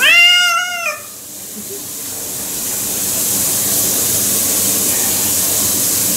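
A wet cat gives one drawn-out complaining meow about a second long as it is held in the shower, then the shower's water spray hisses steadily, building over a couple of seconds and holding.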